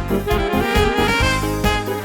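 Instrumental break of a Hungarian folk song played by a small band: a saxophone takes the melody over keyboard and a steady drum beat.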